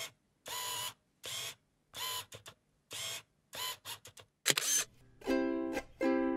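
A series of camera shutter clicks, about six, roughly one every three-quarters of a second, some trailed by quicker small clicks. Then plucked-string music starts about five seconds in.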